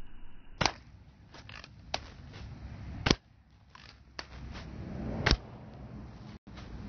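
Daisy Red Ryder spring-powered BB gun being fired at cans: a string of sharp pops roughly a second apart, two of them much louder than the rest, with fainter clicks in between.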